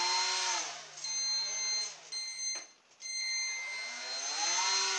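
Small brushed quadcopter-type electric motor of a radio-controlled model boat whining as it is throttled up and back down twice, its pitch rising and falling each time. A steady high whine runs under it from the brushed speed controller's 2 kHz switching. The motor drops out briefly just past halfway, with one click.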